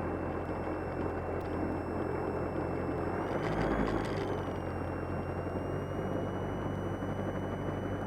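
Cessna 172M's four-cylinder Lycoming O-320 engine and propeller running steadily, heard inside the cabin. About three seconds in, a faint higher tone briefly rises and falls.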